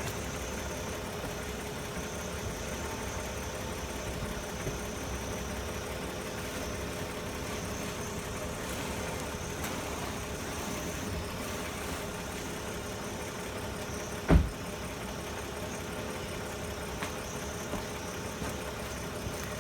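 BMW 535i's turbocharged inline-six idling steadily, with no squeak from the newly replaced lower control arm. A single short knock about 14 seconds in.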